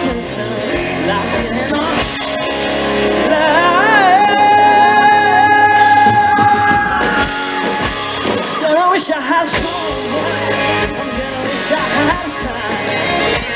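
Live country-pop band playing with a male lead vocal, heard from the front of a concert crowd. About four seconds in, the voice wavers into a long held high note that lasts roughly three seconds before the song carries on.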